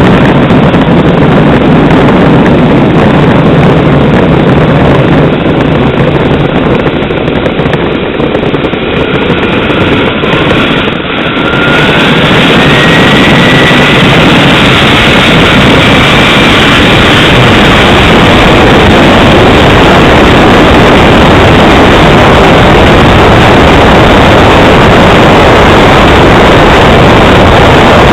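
Model Tornado jet's engine running very loud, its whine rising in pitch about eleven seconds in as it throttles up.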